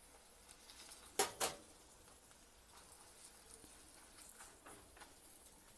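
Two sharp knocks in quick succession about a second in, a utensil striking the cooking pan as the ground spices go in, then a few faint small clicks.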